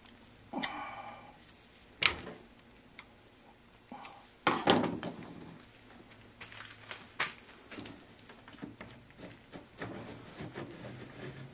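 Metal clinks, knocks and clicks from hand work on an Atlas 618 lathe's carriage apron and handwheel. There is a short ringing clink, then a sharp click, then a heavier clunk about halfway. Lighter ticks follow as the handwheel is turned.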